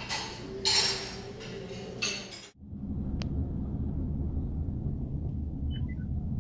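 Dishes and cutlery clinking in about three quick bursts. About two and a half seconds in it cuts to the steady low rumble of a moving car, heard inside the cabin.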